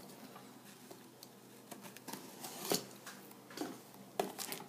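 A few soft taps and faint rustles as a shrink-wrapped cardboard trading-card hobby box is handled and turned over in the hands.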